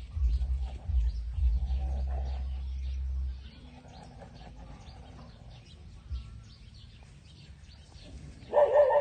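A dog gives a loud, long whine with a wavering pitch near the end. Before it there is low background noise for the first few seconds and faint high chirps throughout.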